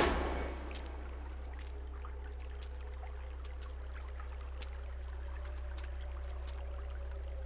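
Horror film soundscape: a loud swell dies away in the first half second, leaving a steady low drone with faint held tones and scattered small clicks and crackles.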